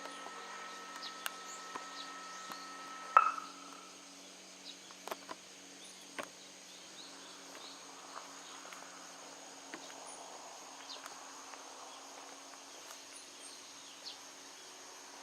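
The last note of an outdoor municipal disaster-prevention loudspeaker chime rings on and cuts off with a sharp click about three seconds in. After that comes a steady high insect drone with scattered small bird chirps.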